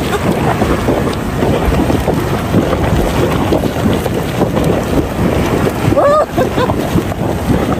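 Strong wind buffeting the microphone in a steady low rumble, with a short vocal exclamation about six seconds in.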